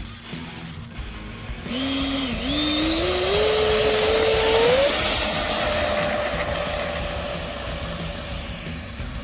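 70mm electric ducted fan of an E-flite F-16 model jet spooling up for a takeoff roll: a high whine that climbs in pitch in steps from just under two seconds in as the throttle is opened, then holds steady at full power and slowly fades as the jet lifts off and flies away.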